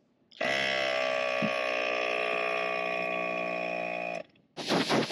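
Vehicle-mounted air compressor starting abruptly, running steadily for about four seconds and cutting off, followed near the end by a few short, loud blasts of air hiss from an air blow gun.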